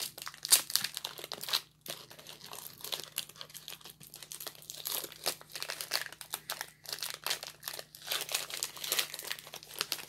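Plastic wrapper of a Nature Valley peanut butter wafer bar being torn open and crinkled by hand: a run of irregular crackles and rustles.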